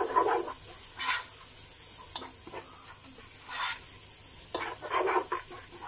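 A spatula scraping and stirring a thick spice masala in a non-stick pot, the paste sizzling in oil as it is fried. Several separate scraping strokes come at irregular intervals over a fainter sizzle.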